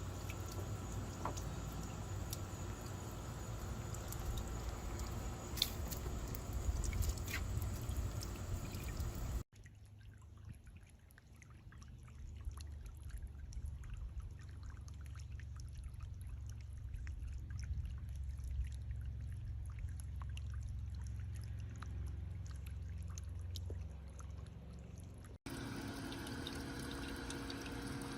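Small solar-powered floating fountain pump spraying water into a bird bath, the spray splashing and trickling steadily back into the basin. The sound cuts abruptly twice: the middle stretch is quieter and duller, with a low rumble.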